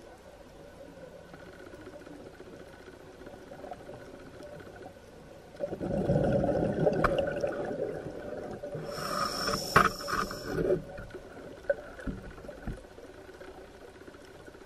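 A scuba diver breathing through a regulator underwater. About six seconds in, a loud gurgling rush of exhaled bubbles lasts nearly three seconds. It is followed by a hiss of about two seconds as the diver inhales through the regulator. Faint ticks come before and after.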